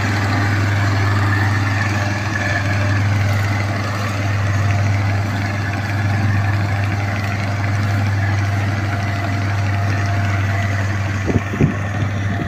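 Skyroad R1-551 tracked rice combine harvester running steadily as it cuts and threshes a standing rice crop, a loud even engine drone with machinery noise above it. Two short thumps come near the end.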